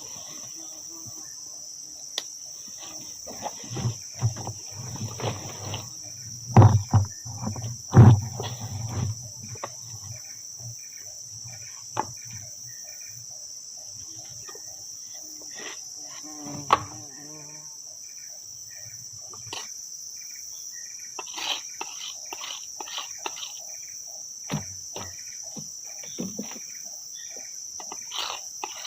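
Steady, high-pitched insect chorus, with scattered rustles and knocks from close by; two loud knocks come about six and eight seconds in.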